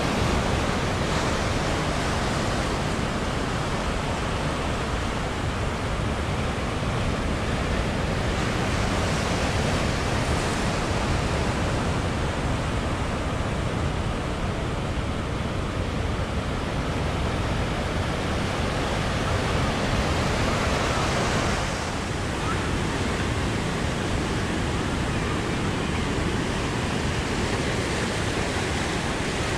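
Ocean surf breaking and washing around the pier pilings below: a steady rush of water that eases slightly a little past two-thirds of the way through.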